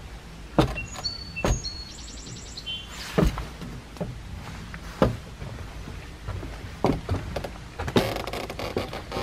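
Irregular knocks and thumps against a small aluminium boat's hull over a low wind rumble, with a few short bird chirps between one and three seconds in.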